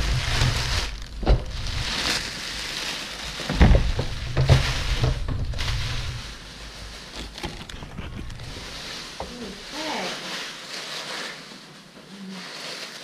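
Thin plastic bag crinkling and rustling as it is pulled off a stainless steel electric pressure cooker, with a few dull thumps. It goes much quieter about halfway through.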